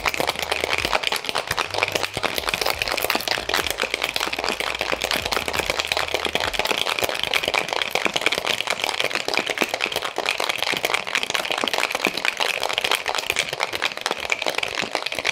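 Ice rattling hard inside a stainless steel two-tin cocktail shaker, shaken fast and without a break: the 20-second shake on ice of an egg white whiskey sour, after its dry shake.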